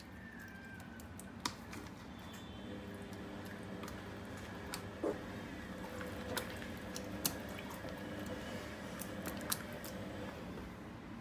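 Hands squishing and rubbing wet spice marinade into whole raw fish in a pot, with a few sharp clicks scattered through over a faint low hum.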